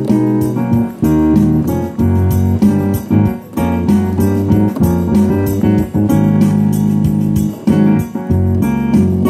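Yamaha DGX-650 digital piano being played by hand: a continuous run of notes and chords over held bass notes.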